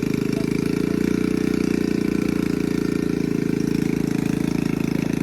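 A motor vehicle engine running steadily at an even speed, a low rumble with rapid, even firing pulses.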